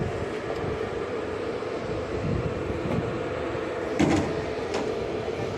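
Construction-site noise: a steady rumble with a few sharp knocks, the loudest about four seconds in, like timbers or props being struck during formwork fitting.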